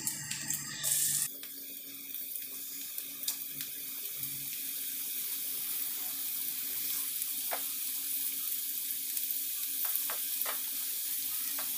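Marinated fish pieces sizzling in hot oil as they are laid into the pan for frying: a steady hiss with scattered small pops, growing slowly louder as more pieces go in. A brief louder hiss comes about a second in.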